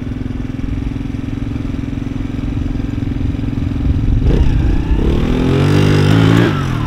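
Small single-cylinder engine of a mini ATV running at a steady speed, then revved up and down from about four seconds in as the quad pulls away.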